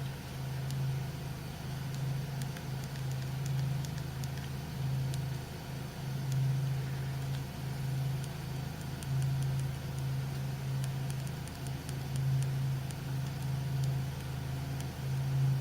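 A steady low mechanical hum that swells and fades every second or two, with faint light clicks scattered over it from the camera's small joystick being pushed while setting the date and time.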